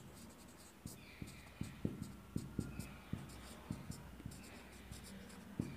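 Marker pen writing on a whiteboard: a string of short, faint strokes and taps as letters are written out, with a couple of brief squeaks.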